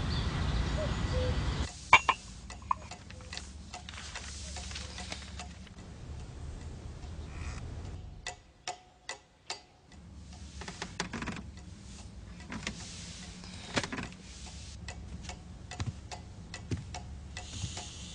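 A clock ticking in a quiet room, after a louder low rumble in the first second or two.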